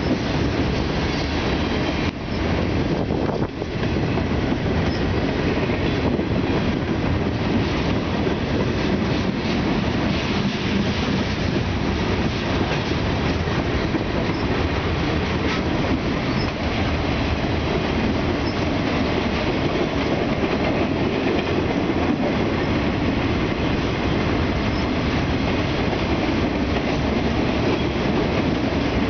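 Freight cars of a long mixed freight train rolling past close by: steady noise of steel wheels running on the rails.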